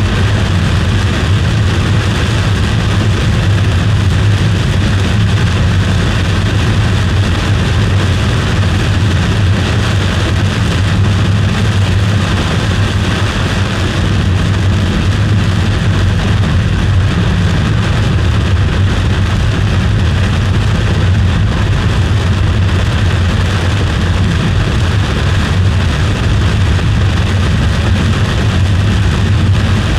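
Steady road and engine noise of a car in motion, with a constant low hum and no breaks.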